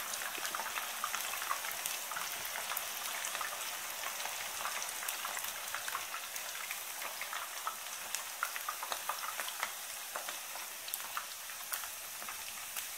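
Battered spiral potatoes on sticks frying in a shallow layer of hot oil: a steady sizzle with frequent small pops and crackles.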